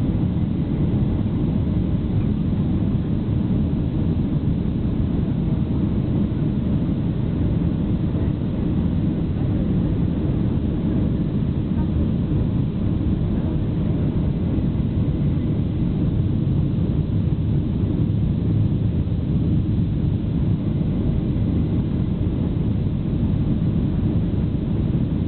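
Steady cabin noise inside a Boeing 737 descending on approach to landing: an even, low rumble of engines and rushing air heard through the fuselage.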